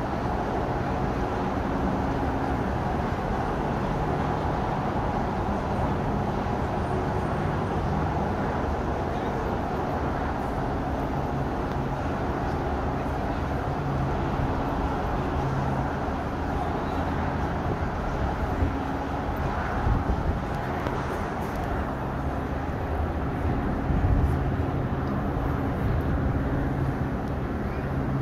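Steady low hum and rushing noise from aboard a cruise ship under way, mixed with road traffic on the causeway below; a few brief louder bumps in the second half.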